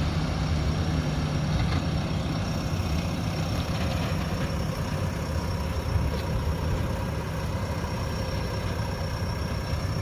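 JCB backhoe loader's diesel engine idling steadily, a low even hum with a thin steady high whine above it.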